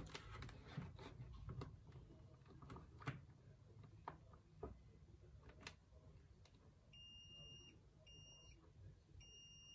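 DT9205A digital multimeter's continuity buzzer beeping at a steady high pitch as its probes touch a wire. Two short beeps come about seven and eight seconds in, then a longer tone from about nine seconds. The beep signals an unbroken circuit through the wire. Before the beeps there are a few faint clicks of the probe tips on the wire.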